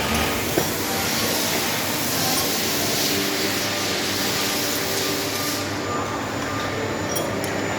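Steady machine-shop hum with an airy hiss that drops away about five and a half seconds in; a single click shortly after the start.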